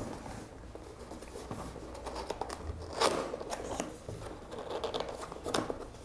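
Cardboard keyboard box being handled and pried open, a stiff, tight-fitting box: rubbing and scraping of cardboard with scattered short clicks, the loudest about three seconds in.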